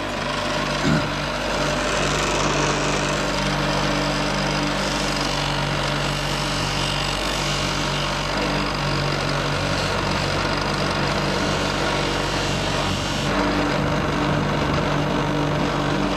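Small electric bench polisher running steadily, its green buffing wheel polishing a cast metal fishing lure held against it. A constant motor hum with a rushing hiss from the wheel on the metal, which shifts slightly about three-quarters of the way through.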